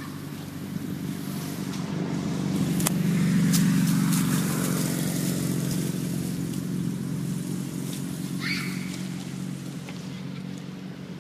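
A motor vehicle engine running with a steady drone that grows louder over the first few seconds, peaks, then slowly fades.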